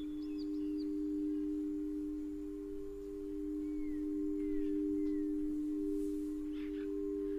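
Singing bowls sounding a steady two-note drone that swells and ebbs gently, with faint jungle birds chirping and whistling high above it.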